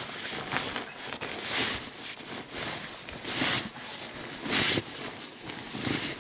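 Nylon sleeping bag rustling in a series of short swishes, roughly one a second, as it is handled and spread out on a sleeping pad.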